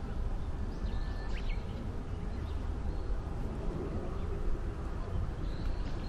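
Outdoor ambience: a steady low rumble with a few faint, short bird chirps about a second in and again near the end.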